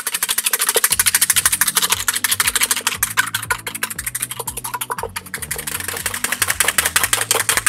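Wire balloon whisk beating egg whites into meringue in a stainless steel bowl: a fast, even clatter of the wires against the metal. Background music plays underneath.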